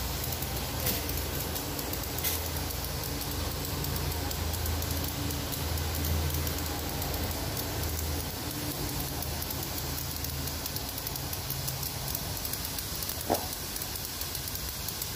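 Pressure washer jet blasting algae off wet concrete: a steady hiss of high-pressure spray hitting the slab, over a low hum. One short knock about thirteen seconds in.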